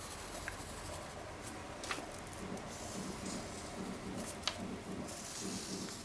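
Sheet of origami paper being handled along its pre-folded creases: faint rustling with a few soft ticks, and a short sliding hiss near the end.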